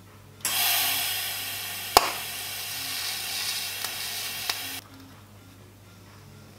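TIG torch tacking a pie-cut stainless steel pipe joint: the arc and shielding gas make a steady hiss that switches on about half a second in and cuts off sharply near five seconds, with a sharp crack about two seconds in.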